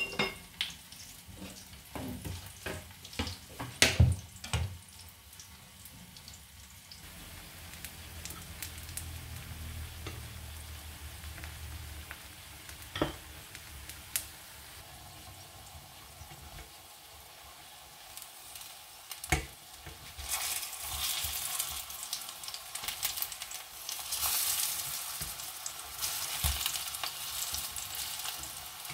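Banana pieces sizzling in hot oil in a nonstick frying pan, a steady fry with a few sharp clicks in the first several seconds. About two-thirds of the way through the sizzle turns louder and more crackly.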